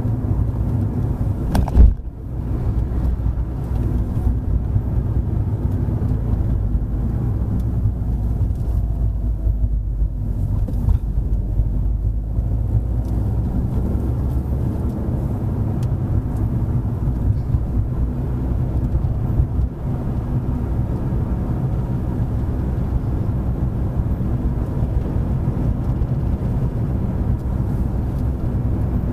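A car being driven steadily, a low engine and road rumble. There is one sharp knock about two seconds in.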